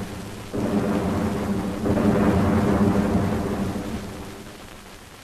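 Deep rumble of artillery explosions, swelling about two seconds in and slowly dying away.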